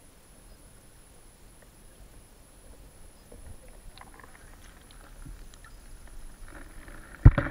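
Camera in a waterproof housing being lifted out of lake water: a faint muffled underwater hush with scattered small ticks, then water splashing over the housing as it breaks the surface, and a sharp, loud knock near the end.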